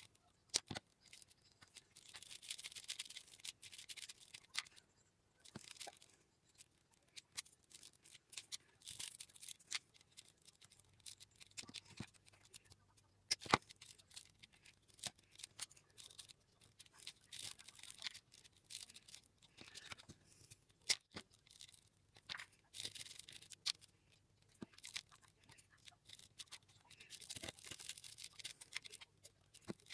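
Rolled newspaper tubes rustling and scraping as they are threaded through the woven wall of a paper basket, with scattered sharp clicks and taps.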